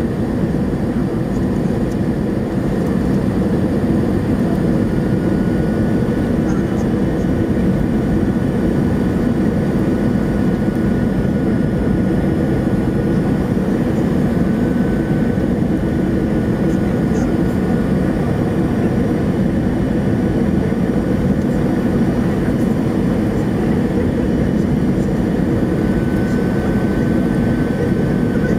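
Steady cabin noise inside an Airbus A321 in flight on approach: the low, even rush of the jet engines and airflow heard from a window seat, with a faint thin whine above it.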